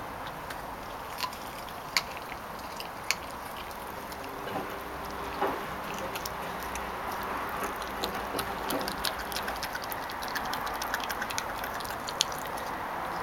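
Labrador puppy chewing a raw chicken leg: sharp clicks and crunches of teeth on bone, a few scattered at first, then coming quickly and often over the last five seconds.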